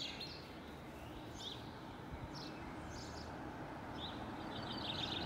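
Small birds chirping in short bursts every second or so, over a steady low rumble of road traffic from a nearby main road.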